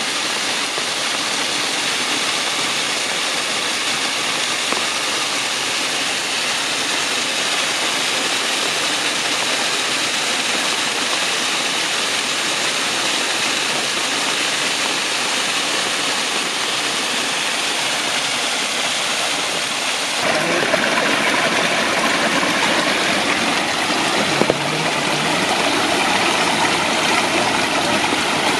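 Steady rush of flowing river water. It grows louder and fuller about twenty seconds in, with a single short knock a few seconds later.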